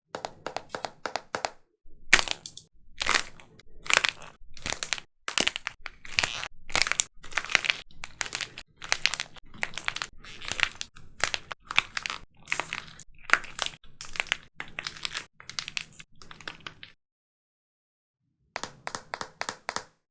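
Dried plaster clay being cracked and crushed: a run of sharp, crunching cracks, one after another, that stops for about a second and a half near the end and then starts again.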